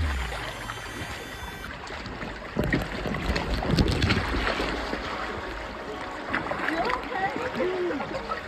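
Moving water rushing and splashing around inner tubes riding down a river channel, with scattered small splashes and knocks.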